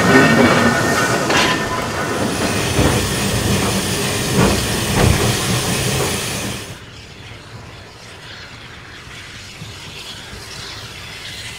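Orenstein & Koppel 0-4-0 steam locomotive working a train: close-up rolling and chuffing noise with steam hiss. About two-thirds of the way through it drops suddenly to a much fainter, distant sound of the loco.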